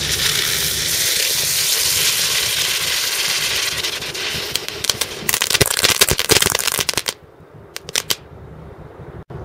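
Two Ground Bloom Crackling ground spinner fireworks going off: a loud hiss of spraying sparks for about four seconds, then rapid crackling pops that stop suddenly about seven seconds in, with a few last crackles after.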